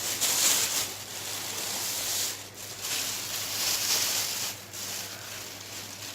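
Plastic garbage bag rustling and crinkling as a vacuum cleaner's dust bag is lifted and shaken out inside it, coming in about three surges.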